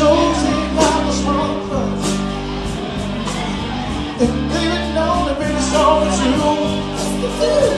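Live rock band playing: electric guitar lines with bends over steady bass and drums.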